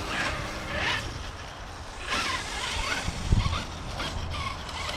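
Arrma Kraton EXB RC truck's brushless motor whining up in several short rising bursts over a steady low rumble, with a single low thump partway through. The truck has broken down, and the owner suspects its rear differential.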